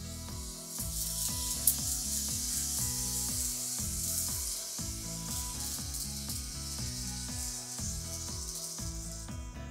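N-gauge model trains running along the track: a steady, hiss-like rubbing whir of wheels and motors on the rails, with one sharp click a couple of seconds in. Background music plays underneath.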